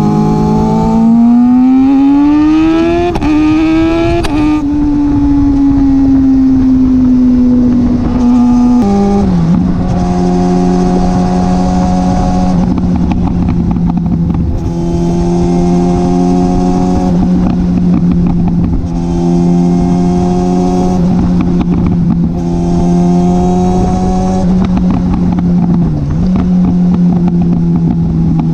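2021 Kawasaki ZX-6R's 636 cc inline-four, heard right beside its M4 exhaust with de-catted baffle. The engine revs up with a rising pitch broken by two brief dips, eases off with a slowly falling note, then from about nine seconds in holds a steady note. The tone of that steady note brightens and dulls every few seconds.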